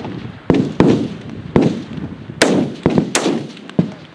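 Rifle shots from the firing line of a 1000-yard F-Class match: about five loud, sharp reports in four seconds, each trailing off in a long echo, with a few fainter shots from rifles further along the line.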